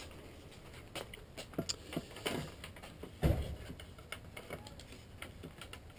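Flat-pack bed parts knocking and clicking as the slotted legs are handled and pushed into the frame, several light knocks and then one louder thump about three seconds in.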